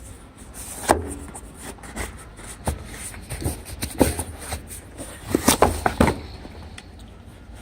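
Flashlight packaging being opened by hand: rustling and handling noise with scattered taps and clicks, and a quick run of sharper knocks about five to six seconds in.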